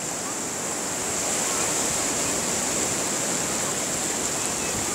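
Shallow surf washing over a sandy beach: a steady rush of water noise, growing a little louder about a second in.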